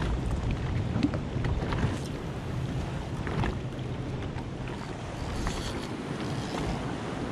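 Wind buffeting the microphone over choppy sea water washing around a jet ski, with a few faint clicks.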